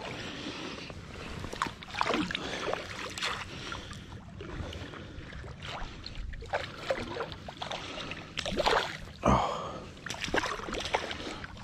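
Water splashing and sloshing close at hand in irregular bursts as a hooked trout thrashes at the surface, with the sharpest splash about nine seconds in.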